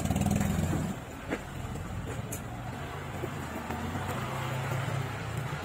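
An engine running nearby as a steady low hum, with a single short knock about a second and a half in.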